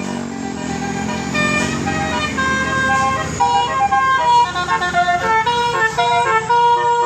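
Bus telolet musical air horn (Basuri type) playing a tune of held notes that step up and down, getting quicker and busier after a few seconds. Under it, the bus engine fades away in the first second or two.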